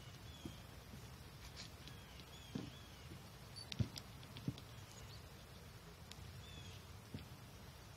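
Small birds chirping faintly and repeatedly in the trees, with a few soft knocks as a golfer walks onto the tee and tees up his ball; the loudest knock comes about halfway through.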